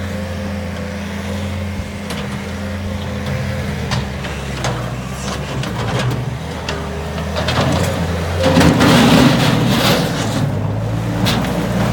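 Bobcat S220 skid-steer loader's diesel engine running steadily, growing louder and rougher about eight and a half seconds in as it revs up or takes load. Scattered knocks and clanks sound over it.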